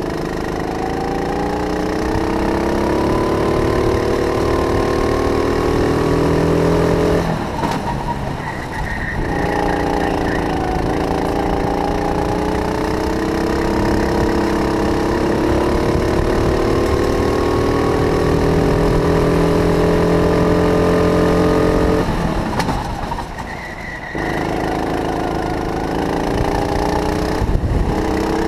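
Go-kart engine heard from on board, its pitch climbing steadily as the throttle is held down the straights. Twice the revs drop off suddenly as the driver lifts for a corner, then build again.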